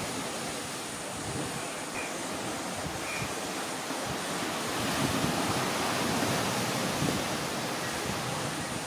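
Steady rushing of sea surf and wind on the microphone, swelling a little past the middle.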